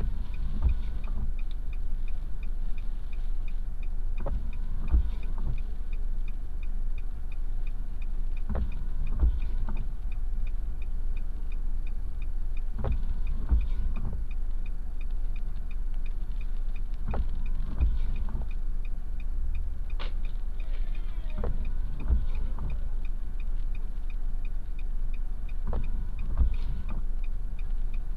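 A car's flasher ticking steadily and evenly, heard inside the cabin over the low rumble of the idling engine. Several dull low thumps come at irregular moments.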